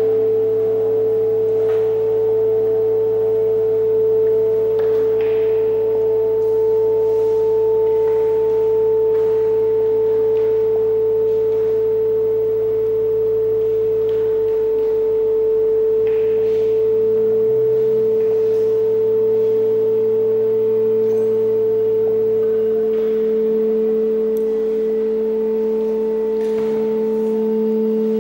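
Sustained drone of many musicians holding the notes A and E together: one loud, steady high A, with other A's and E's in octaves above and below. A lower A grows stronger about two-thirds of the way through, and a deep layer drops out near the end.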